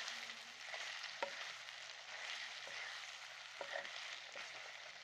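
Chicken karahi sizzling steadily in the pan as homemade malai (cream) is added on top, with a few light clicks.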